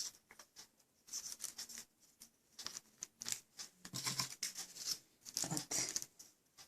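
Dry butter crackers being set down and nudged into place on a wafer sheet: light, irregular clicks and scrapes with short quiet gaps between them.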